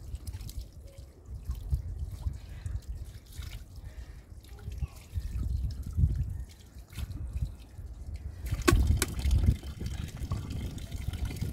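Water dripping and trickling over an uneven low rumble, with scattered clicks and a louder noisy stretch about nine seconds in.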